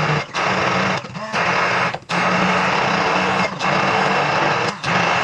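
Electric blender motor running hard, grinding the spice paste for soto (shallots, garlic, candlenuts, ginger, turmeric). It runs in spells with several brief stops in between.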